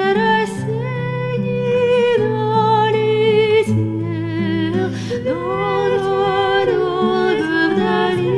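Voices singing a Bulgarian folk song as a canon, the melody wavering over held low accompanying notes, with short hissy consonants or breaths now and then.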